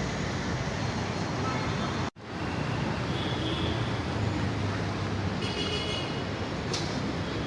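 Road traffic noise on a busy city street: a steady rush of passing vehicles, broken by a brief dropout about two seconds in.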